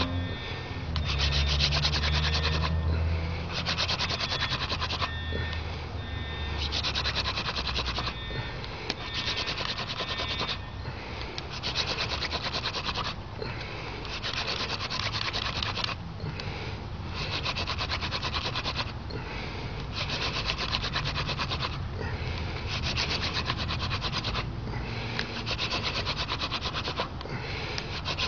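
Hand-drill friction fire: a dog fennel spindle spun back and forth between the palms, grinding into a dog fennel hearth board with a dry rasping. The rasping comes in runs of one to two seconds with short breaks between them.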